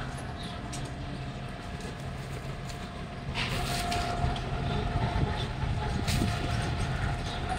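Street traffic: a steady motor-vehicle engine rumble that grows louder about three seconds in as a vehicle comes close.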